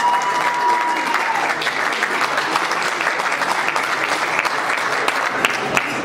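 Audience applauding, a dense, steady clatter of many hands clapping. A steady high tone sounds over it and ends about a second and a half in.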